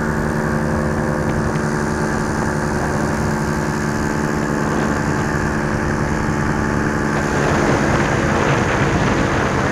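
A small propeller engine running steadily in flight, a constant buzzing hum with air rushing past. From about seven and a half seconds in it grows louder and rougher, with more rushing noise.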